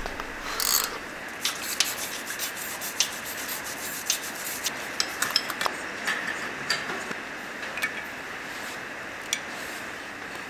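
Hand tools clicking and scraping on the metal of a turbocharger while its studs are worked loose: an irregular scatter of small metallic clicks and rubbing.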